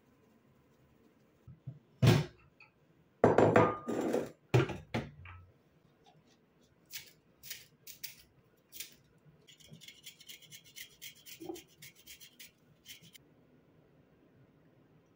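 Handling noises: a few knocks and thuds with some rubbing as objects are picked up and put down, then scattered single clicks and a run of quick light clicks for about three seconds near the end.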